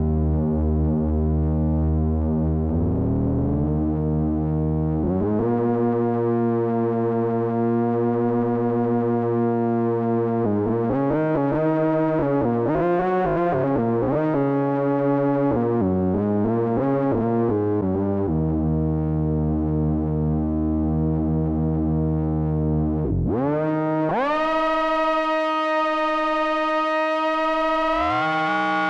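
Behringer Odyssey analog synthesizer played live: held buzzy notes that glide from pitch to pitch, a quicker run of changing notes in the middle, then a deep pitch plunge and a swoop up into a bright held tone, with a second line sweeping in pitch near the end.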